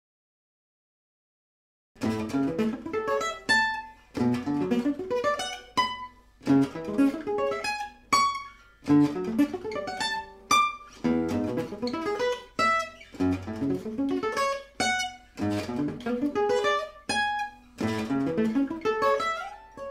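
Gypsy jazz acoustic guitar picked in fast single-note runs, in short phrases that mostly climb in pitch, with brief breaks between them; it begins about two seconds in after silence.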